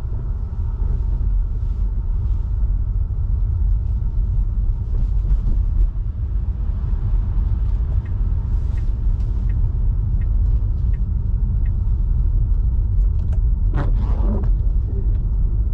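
Steady low rumble of a Tesla Model 3 driving on a snow-covered road: tyre and road noise with no engine note, since the car is electric. A brief louder noise comes near the end.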